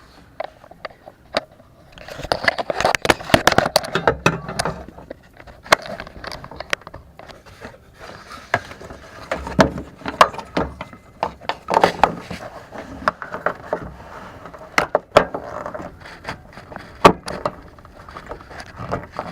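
Hands working plastic parts in a car's engine bay, the intake tube and a turn signal bulb socket: irregular clicks, scrapes and rattles, busiest a couple of seconds in and again around the middle.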